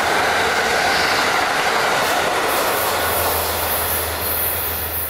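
An Amtrak train of stainless-steel Amfleet passenger coaches passing close at speed, with a loud, steady rush of wheels on rail. The noise starts to fade near the end as the last car clears.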